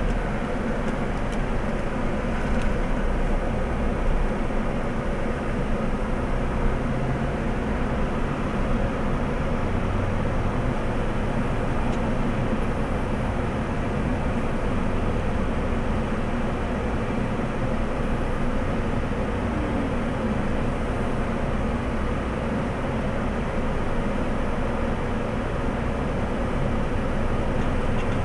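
A car's engine idling steadily, a constant low hum with no change in pace.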